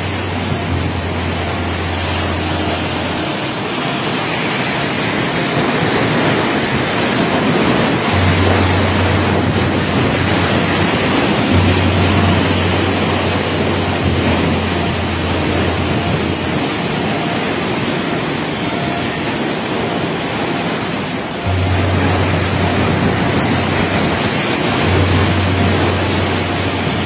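Typhoon storm noise: a loud, dense rush of wind and water with wind buffeting the microphone. A steady low hum cuts in and out several times.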